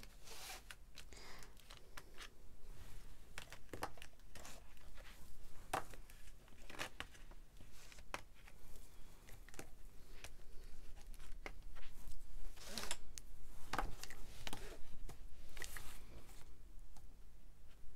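Oil pastel sticks being picked out of their box and handled: scattered light clicks and taps of the sticks against each other and the tray, with a little rustling, busier about two-thirds of the way in.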